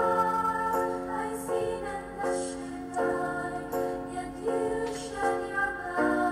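Background music: a slow melody of held notes, each changing to the next roughly every three-quarters of a second.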